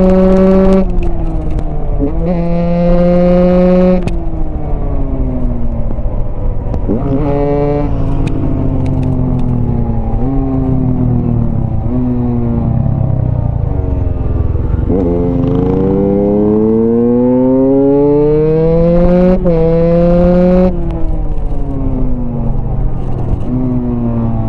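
Husqvarna single-cylinder dirt bike engine pulling hard: revs climb and drop sharply at each upshift, about every two to three seconds. About midway the revs fall away as the bike slows, then climb through the gears again.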